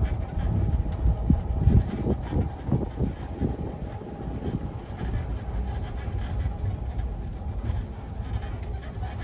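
Vehicle running and jolting over rough ground: a steady low rumble with a string of irregular knocks and rattles in the first few seconds, settling toward the end.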